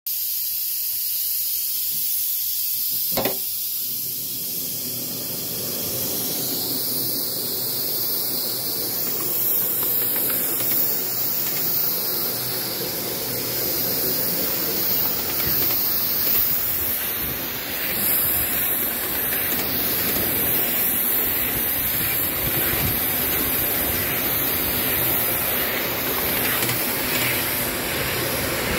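Coal-fired 5-inch gauge live-steam model of a BR Britannia locomotive: steam hissing, with a single sharp click about three seconds in. From about five seconds in come the steady hiss and running noise of the engine moving along the track under steam.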